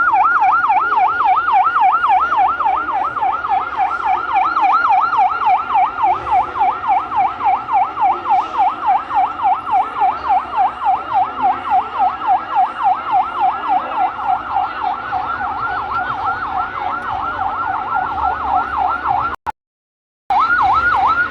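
Emergency vehicle siren wailing in a fast yelp, its pitch sweeping up and down about four to five times a second. It cuts out briefly near the end, then resumes.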